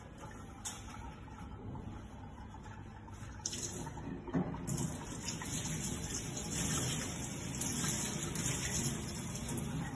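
Kitchen tap running into a stainless steel sink with hands being rinsed under the stream; the flow comes on about three and a half seconds in, with a clunk shortly after.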